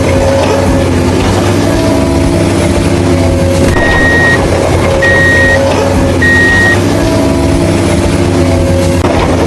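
Heavy vehicle engine running steadily, with a reversing alarm giving three short high beeps about midway.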